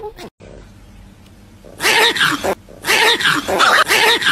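Small white dog growling and yapping in short, pitched bursts, starting about two seconds in.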